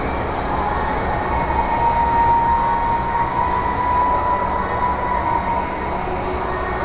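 Steady, fairly loud indoor rumble of a large shopping-mall atrium. A thin whine climbs slightly about a second in, holds, and fades out a few seconds later.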